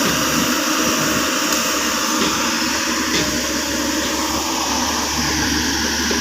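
Caterpillar 307.5 mini excavator's diesel engine running steadily under hydraulic load, with a few faint knocks.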